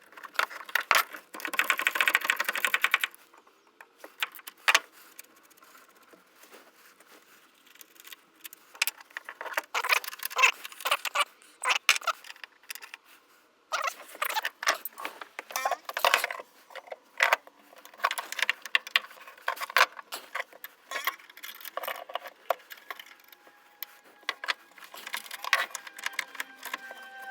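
Irregular metallic clicking, clinking and rattling of hand tools and loose metal parts being handled. The sounds come in bursts with quiet gaps between, and are densest about a second in.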